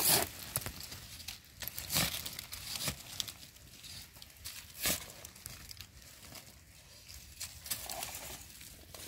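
Dry leaf litter crackling and a hand trowel scraping in loose soil while mushrooms are dug out, with a few short sharp scrapes about 2, 3 and 5 seconds in.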